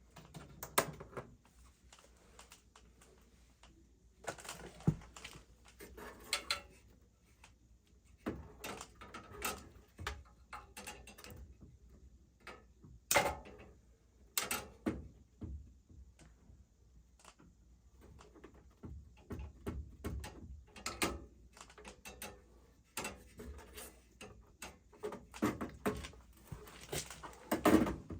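Irregular clicks, taps and rustling of hand tools and small parts being handled while working on furnace igniter wiring, with a few sharper clicks standing out.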